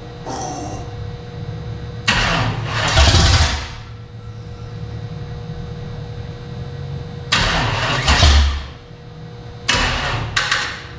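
Chevy 350 V8 being cranked by its starter in three bursts of a second or so, turning over without catching, on a jumped battery that is running low.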